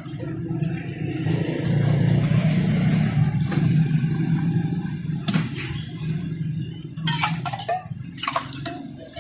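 Motor vehicle engine running with road or traffic noise, loudest about two seconds in, followed by a few short clattering sounds near the end.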